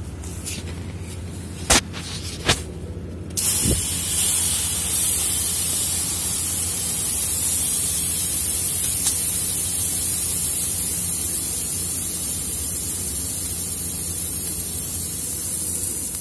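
Chilled water jetting out of an opened drain valve under a pipeline strainer, a steady loud hiss that starts suddenly about three and a half seconds in, as the strainer is flushed. A constant low hum runs underneath, and two sharp knocks come just before the jet starts.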